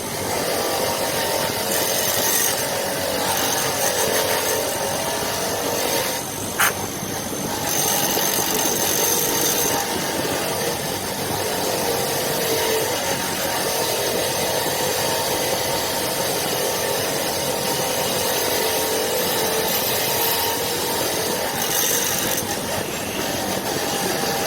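A power tool running steadily under load as it works on a hammer, its pitch wavering as the pressure changes, with one sharp click about six and a half seconds in.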